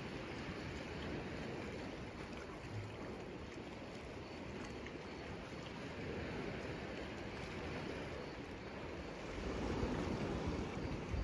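Steady outdoor wash of sea water and wind. Wind begins to buffet the microphone near the end, adding a low rumble.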